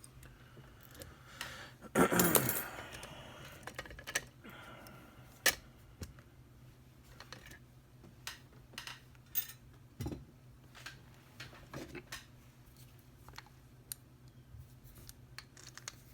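Light metallic clicks and ticks as a padlock and lock-picking tools are handled, with a louder clatter about two seconds in.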